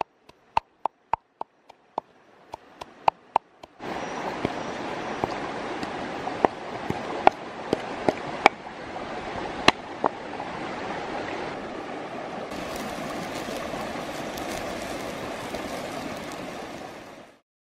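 A pestle knocking into a mortar as red chilies are pounded: a run of sharp knocks, at first over near quiet, then fewer and scattered over the steady rush of a stream. In the last few seconds a higher hiss joins the stream as squid sizzles on a hot stone slab over a wood fire, and everything cuts off suddenly near the end.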